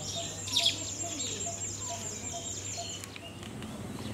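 Birds calling outdoors: a high, quickly repeated call, about four a second, runs until about three seconds in, with one louder call about half a second in.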